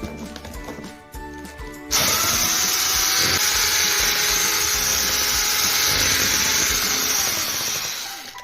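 Electric kitchen mixer running steadily with a motor whir, starting abruptly about two seconds in and fading out near the end, over background music.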